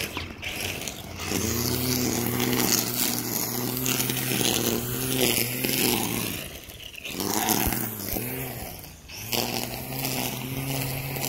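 Small two-stroke engine of a gas string trimmer running at high revs in three long bursts, its pitch rising and falling as the throttle is worked, easing off briefly twice between bursts, with a hiss of the line cutting weeds.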